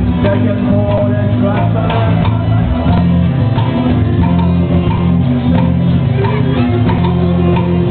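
Live rock band playing a song: electric and acoustic guitars over drums, with a steady beat and sustained bass notes.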